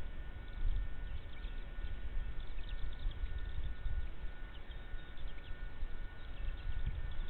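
Outdoor ambience: a steady low rumble with a thin steady whine, and faint short high chirps scattered throughout.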